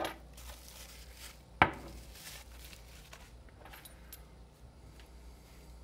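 A small brass padlock being handled as it comes out of its bubble wrap: one sharp metallic click about a second and a half in, then faint clinks and soft rustling of the plastic wrap.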